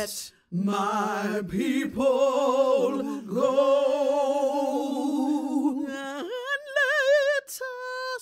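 Solo female voice singing unaccompanied, with no clear words, holding long notes with wide vibrato and taking short breaths between phrases.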